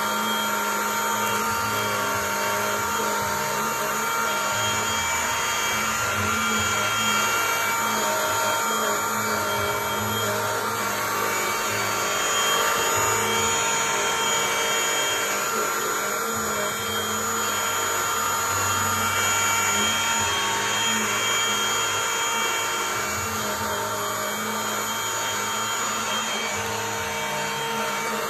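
Cordless stick vacuum cleaner running continuously, a steady motor whine over the rush of suction, the low end shifting now and then as the nozzle is moved.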